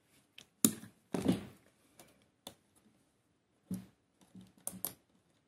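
Scattered small plastic clicks and taps from an opened ASUS ROG Gladius III Wireless mouse as fingers pry at the scroll-wheel area to free the wheel's lighting piece. The loudest is a brief scraping knock just after a second in.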